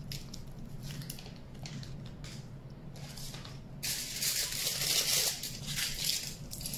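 Aluminium foil being handled and crumpled: a few light crinkles at first, then from about four seconds in a dense, continuous crinkling as a sheet is pulled out and scrunched.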